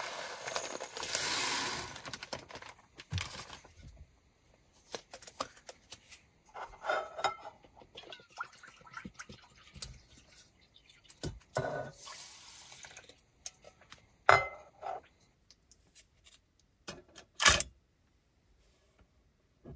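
Dry rice grains poured from a bag into a clay rice pot, a rushing patter for the first few seconds. Then light clinks and knocks of metal cookware and a small metal stove being handled, with two sharper clinks near the end.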